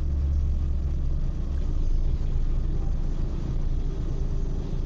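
Steady low rumble of a truck's diesel engine idling, heard from inside the cab while the truck stands still; the rumble is heaviest for the first second or so.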